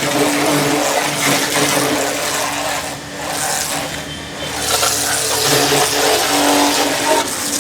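Electric high-pressure washer spraying a jet through its red high-pressure nozzle: a loud, steady hiss of water with the motor-driven pump humming underneath. The spray eases briefly in the middle and then comes back at full strength.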